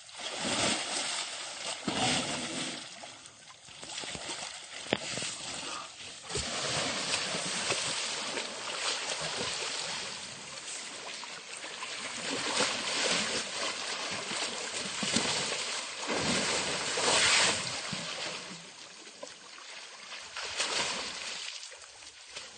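Water sloshing and splashing as an Asian elephant wades about in a muddy pond, an uneven rushing noise that swells and fades.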